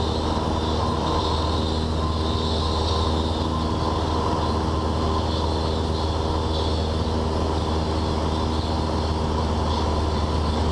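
Cessna 172N's four-cylinder Lycoming engine and propeller running steadily in flight, an even drone that holds the same pitch and level throughout.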